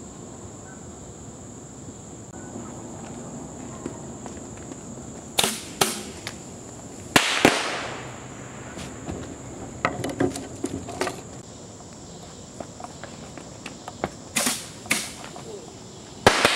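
Sharp echoing bangs from bridge demolition work, coming singly and in pairs at irregular intervals, over a steady high-pitched insect drone.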